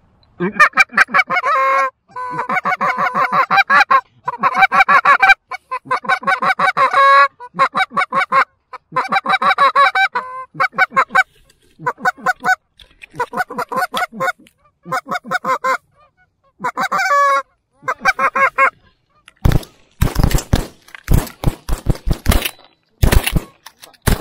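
Canada geese honking and clucking in fast, loud runs of repeated calls, the sound of a flock being worked in to decoys. Near the end comes a quick string of sharp shotgun reports.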